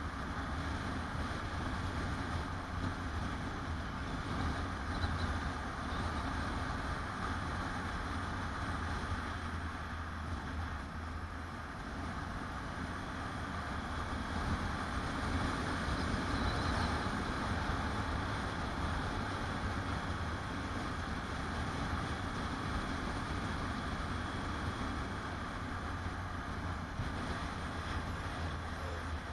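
Motorcycle engine running at a steady cruising pace, heard from on the bike, with wind rushing over the microphone.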